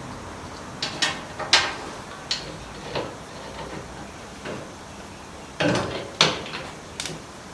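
Hand tools working on a motorcycle's rear suspension bolts: a scattered run of metallic clicks and clinks, with two louder knocks near the end. The nuts come off easily, not seized.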